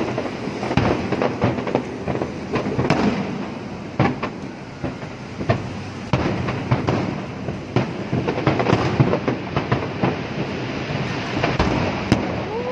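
Fireworks display: many aerial shells bursting at once, making a continuous crackling rumble with sharper bangs standing out irregularly.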